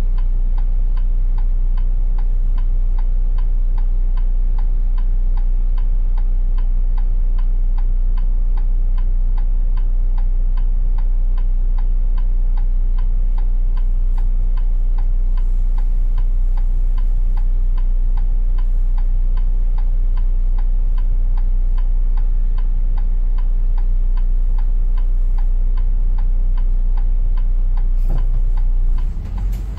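Bus turn-signal indicator ticking evenly, a few ticks a second, over the steady low hum of the idling diesel engine while the bus waits at a red light. Near the end the engine sound changes as the bus pulls away.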